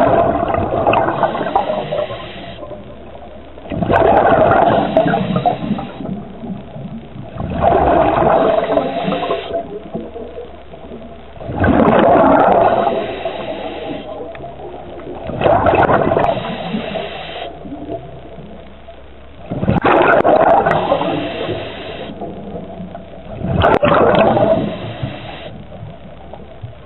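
Scuba diver breathing underwater through a regulator: a gurgling rush of exhaled bubbles about every four seconds, seven times, with quieter stretches between breaths.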